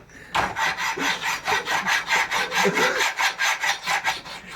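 A hand saw cutting a piece of wood, in quick, even strokes about five a second that start about half a second in.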